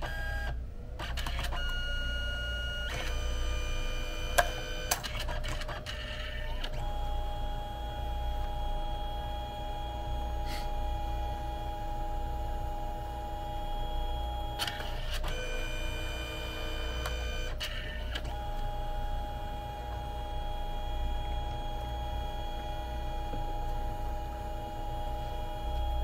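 Canon Selphy CP1300 dye-sublimation photo printer running, its motors giving a steady pitched whine in separate runs. In the first few seconds there are short runs that change pitch, with a sharp click about four seconds in; then come two long even runs of about eight seconds each as the paper is carried through a print pass.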